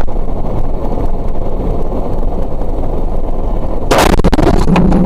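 Loud road and engine rumble heard from inside a vehicle driving on a snowy road, then a sudden heavy crash impact about four seconds in, followed by clattering knocks.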